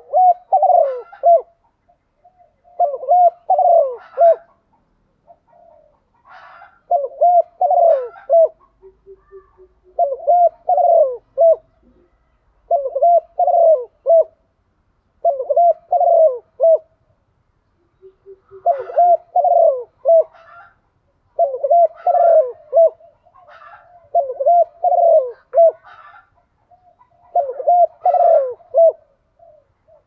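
Spotted dove cooing its territorial call, a short phrase of a few notes repeated about every three seconds with a couple of longer pauses. This is a caged decoy bird's call, used to lure wild spotted doves.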